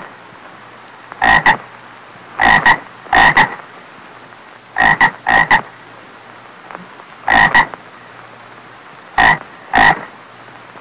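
Frog croaking in short croaks that come mostly in pairs, a new pair every second or two, over a faint steady hiss.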